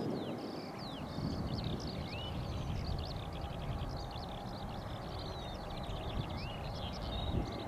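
Distant low rumble of a Boeing 737-900ER's CFM56 jet engines at takeoff power, with songbirds chirping and whistling over it in quick short notes and sweeping calls.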